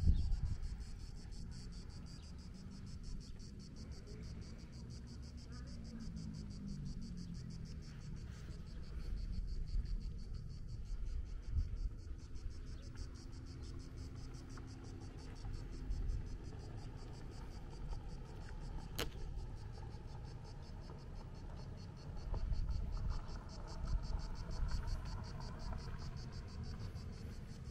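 Insects chirping in a steady, fast-pulsing chorus, over a low rumble that swells now and then.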